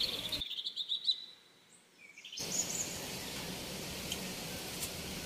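Birds chirping briefly, then after a short drop-out a steady rush of tap water running into a steel bowl.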